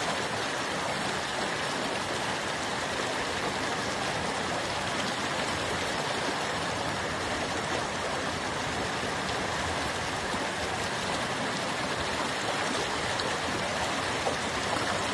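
Steady rush of running water, an even hiss with no breaks or distinct events.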